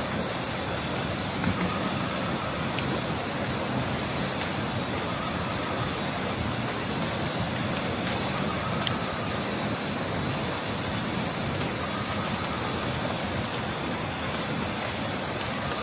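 Night forest ambience: a steady insect chorus with one high, continuous trill. A faint short call repeats about every three and a half seconds, and there are a few sharp clicks.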